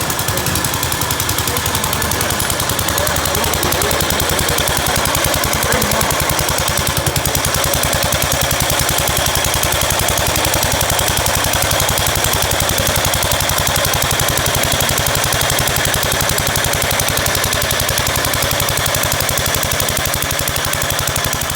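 Gravely walk-behind tractor's single-cylinder engine running steadily, with an even chugging beat of firing strokes.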